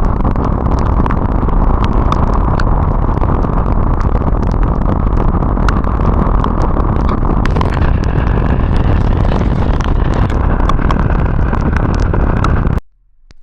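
Loud, steady wind and road noise from a motorcycle ride in the rain, with scattered sharp clicks over it. The noise cuts off abruptly near the end.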